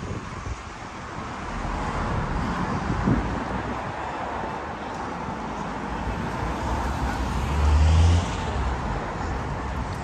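Street traffic passing, a steady wash of road noise. About eight seconds in a vehicle passes close with a louder low rumble and tyre hiss, the loudest moment.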